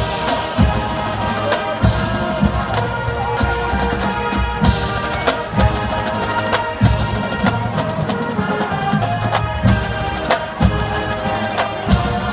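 College marching band playing on the field: brass holding pitched notes over a drumline and percussion, with sharp accented hits every second or two.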